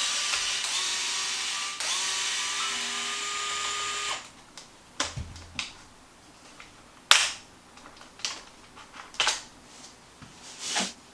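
DeWalt cordless screwdriver running in two spells of about two seconds each, with a short pause between, as it backs out the screws holding the RC truck's plastic rear bumper. Then it stops, and there are scattered light clicks and knocks of the plastic bumper parts being pulled off and handled.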